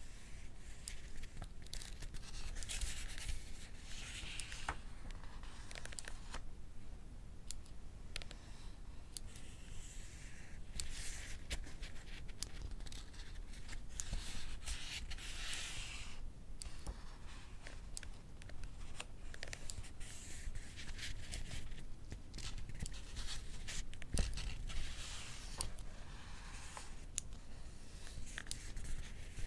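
Pages of a paperback book turned about five times, each a soft papery swish, over a running series of small sharp clicks from a mechanical pencil pushing out its lead.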